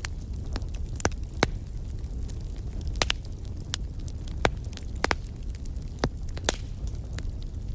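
Wood fire burning in a fireplace, crackling: sharp, irregularly spaced pops over a steady low rumble of flames.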